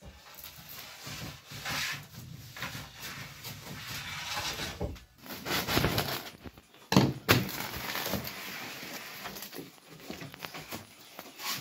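Freshly baked crusty flatbread being handled and cut with a knife on a stone slab: irregular scraping and crackling of the crust, with two sharp knocks about seven seconds in.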